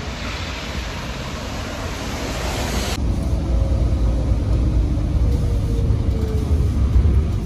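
Steady hiss of traffic on a wet street. About three seconds in it cuts to the low rumble of a city bus heard from inside while it drives, with a faint whine that slowly falls in pitch.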